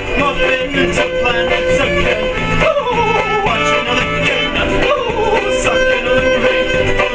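Violin played live with a bow: a lively fiddle tune with a few notes that slide down in pitch around the middle.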